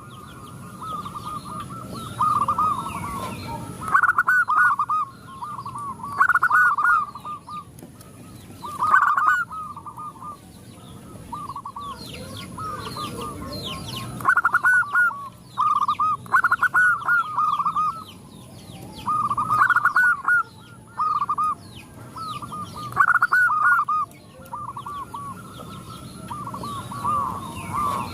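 Several zebra doves cooing, each song a quick run of staccato notes, repeating every few seconds and overlapping one another. Faint high chirps of small birds are heard above them.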